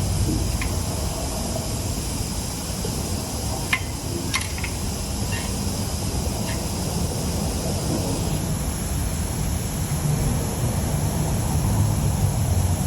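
Steady low mechanical drone of running shop machinery or ventilation, with a few light clicks about four seconds in.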